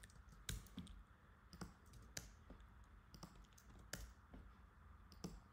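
Faint, irregular keystrokes on a computer keyboard: a handful of separate sharp clicks, the strongest about half a second and about four seconds in, as code is edited.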